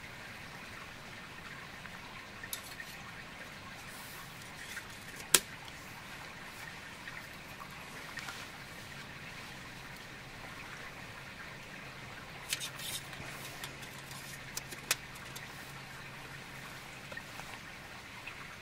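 Rainwater dripping and trickling in wet woods after rain, a steady faint hiss, with a few sharp clicks and small knocks over it, the loudest about five seconds in and a small cluster about twelve to thirteen seconds in.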